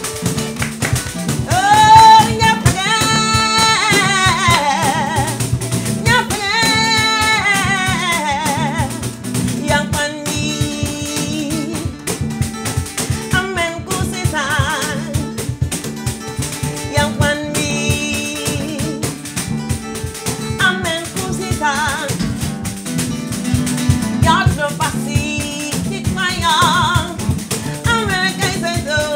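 Live acoustic band music: sung vocal phrases that slide in pitch over guitar and percussion with a steady beat.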